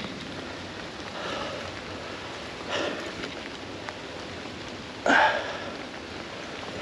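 Steady rush of running river water. A short louder noise sounds about five seconds in, and a fainter one just under three seconds in.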